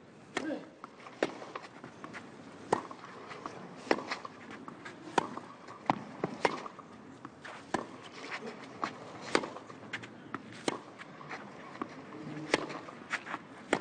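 Tennis rally on a clay court: sharp pops of the ball off the racket strings, one about every second and a half, with softer ball bounces between them.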